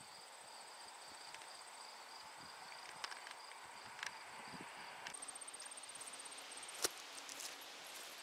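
Faint, high-pitched insect trilling, pulsing steadily; a louder trill starts about five seconds in and stops about a second and a half later. A few light clicks, the sharpest one near seven seconds.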